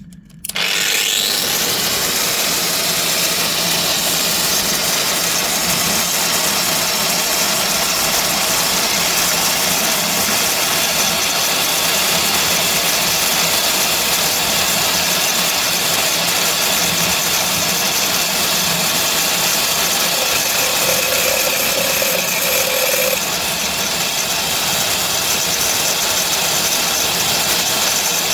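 Angle grinder starting up with a quick rising whine, then running steadily as its blade cuts into a 10 mm porcelain tile, scoring a small square from the face without going through. The level drops slightly about three quarters of the way through.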